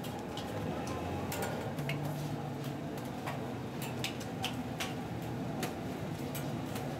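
Metal spatula blade clinking and scraping on domed tawa griddles while rotis are turned: a string of irregular sharp clinks over steady background noise.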